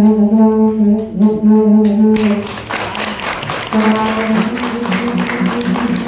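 A loud held note, steady in pitch and rich in overtones, sounds like a wind instrument. About two seconds in, applause breaks out, and the note comes back beneath it in short repeated pulses.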